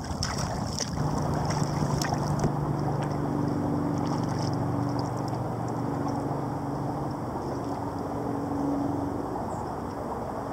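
Water and wind noise as a sea kayak is paddled and then glides, with a few sharp splash-like clicks in the first two seconds. A steady low hum sets in about a second in and fades near the end.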